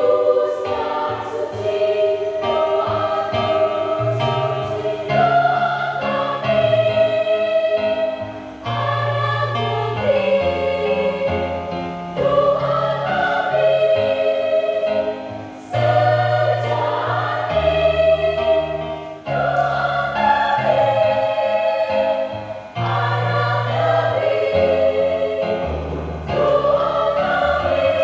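School choir singing in parts, in long held phrases that swell and dip every few seconds, over steady low held notes.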